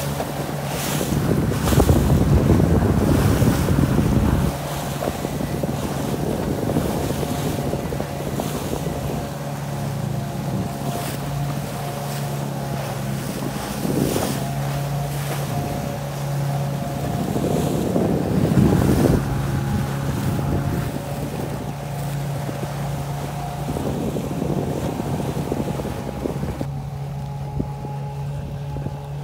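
Motorboat engine running steadily under way, with choppy sea splashing and wind buffeting the microphone in gusts, loudest about two to four seconds in and again around eighteen seconds.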